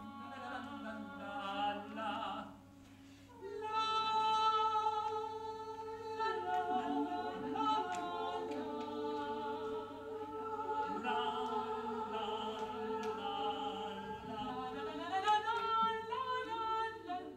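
A cappella vocal ensemble singing, several voices holding long notes together. There is a short lull about three seconds in before a held chord comes in, and the voices rise together near the end.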